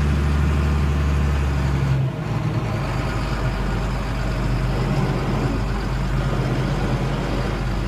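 Engine of heavy farm machinery running steadily; about two seconds in its deep hum drops lower and carries on at the new pitch.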